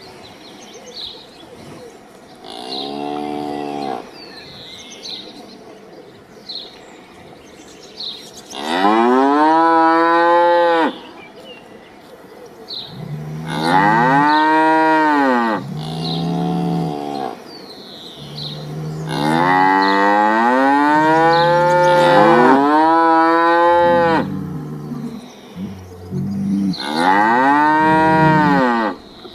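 Cattle mooing: about six long moos with quieter gaps between, each rising and then falling in pitch. The loudest come around the middle and near the end.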